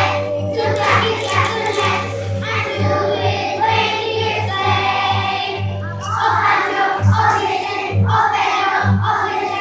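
A group of young children singing a Christmas song together over a recorded backing track with a steady, pulsing bass beat.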